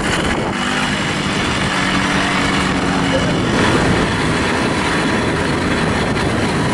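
Moped engine running steadily under way on a rough dirt track, buried in heavy wind noise on the microphone. The engine's steady hum is clearest in the first few seconds.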